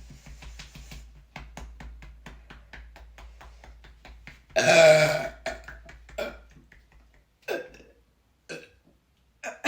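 Sprite gulped down in quick swallows, about four a second, then one long, loud burp from the soda's carbonation about four and a half seconds in, followed by a few short, fainter sounds.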